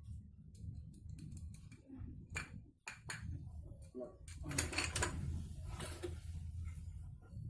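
Small metal parts from a scooter's CVT clinking and clicking as they are handled and set down, with a scraping stretch in the second half, over a low steady hum.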